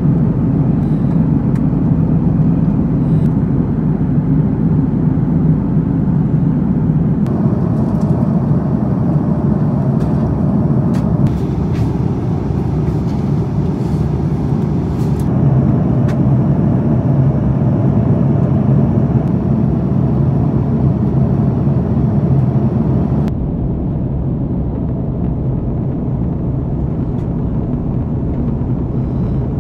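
Steady cabin drone inside an Airbus A330-300 airliner in flight: jet engine and airflow noise with a low hum beneath it. The hiss drops a little about three quarters of the way through.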